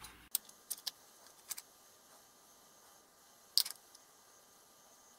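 Scattered small clicks and light metallic knocks from inside a Smiths vertical gyro unit as it is tilted by hand: a few in the first second and a half, and a louder one about three and a half seconds in. It is an abnormal rattle from the shock-damaged unit, whose source inside the owner cannot yet find.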